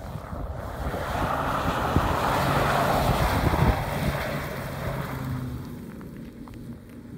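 Hatchback car's engine held at steady revs while it slides sideways on snow-covered ice, its spinning tyres throwing up snow with a rushing hiss. The sound swells as the car passes close, loudest two to four seconds in, then fades as it drives away. Wind rumbles on the microphone.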